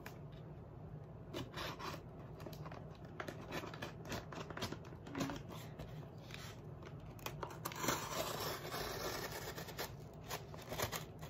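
A box cutter scratching and slitting through the packing tape on a cardboard shipping box: a run of short scrapes, with a longer, rasping stretch of cutting about eight seconds in.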